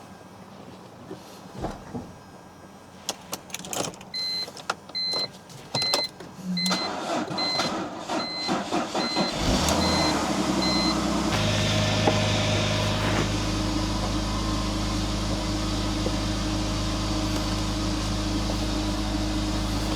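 BMW E46 being started on a booster pack right after an oil change: a few clicks, then a warning chime beeping about twice a second; about nine and a half seconds in the starter cranks, the engine catches, and it settles into a steady idle.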